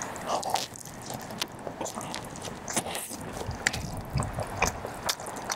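Chewing a mouthful of Chapagetti black-bean instant noodles, with many short wet mouth clicks and smacks.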